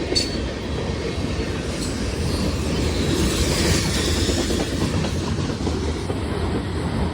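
Freight train cars rolling past, steel wheels clacking over rail joints over a steady low rumble.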